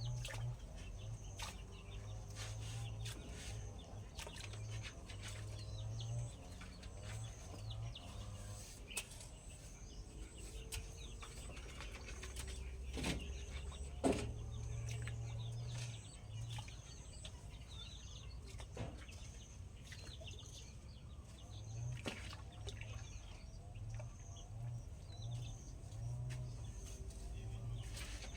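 Domestic fowl clucking and birds chirping in short scattered calls, with a few sharp knocks, the loudest about 13 and 14 seconds in.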